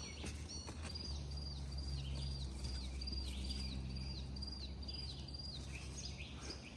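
A songbird singing a fast series of about a dozen repeated high whistled notes, each sliding downward, about two and a half a second, stopping a little over five seconds in, over a steady low hum.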